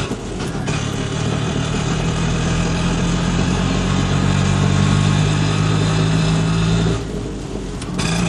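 Piaggio Ape Xtra three-wheeler auto-rickshaw's engine running steadily as the fully loaded rickshaw pulls away, the sound dipping briefly near the start and again about seven seconds in.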